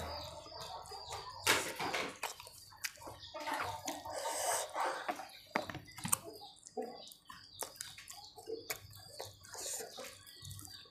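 Close-miked wet chewing and lip-smacking of someone eating rice and salted fish with their fingers: irregular short clicks and squelches.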